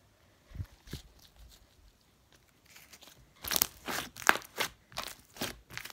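Irregular crunching and crackling: a couple of faint taps, then from about three and a half seconds in a dense run of sharp crackles.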